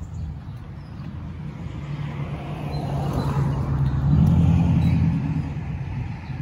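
A car driving past on the street. Its engine hum and tyre noise grow louder, peak about four seconds in, then fade away.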